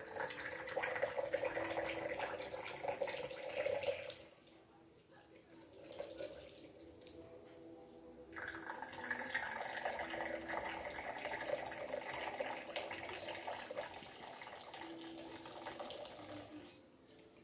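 Coffee poured in a thin stream from a clay jebena into small cups: two long pours, the first over the first four seconds or so, the second from about eight seconds in until near the end.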